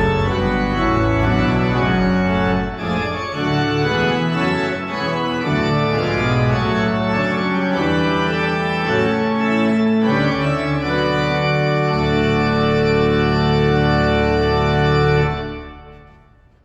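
Organ playing sustained chords, ending on a long held final chord that dies away near the end.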